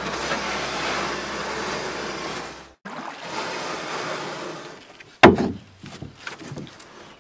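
Water lapping and splashing close to a low-held camera as a kayak moves through the water, with a rushing hiss. About five seconds in there is one loud sudden knock, followed by a few small splashes and clicks.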